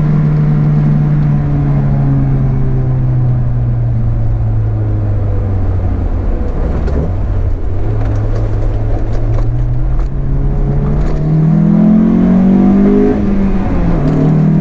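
2004 Honda S2000's four-cylinder engine running while driving: the revs fall slowly for about eight seconds, then climb again, with a brief dip near the end before rising once more.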